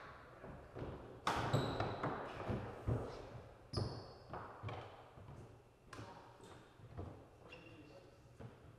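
Badminton rally in a sports hall: sharp racket strikes on the shuttlecock about a second apart, mixed with players' shoes thudding and squeaking on the court floor.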